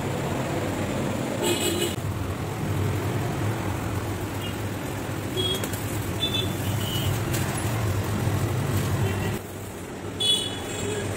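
Road traffic rumbling steadily, with short vehicle horn toots about a second and a half in and again near the end.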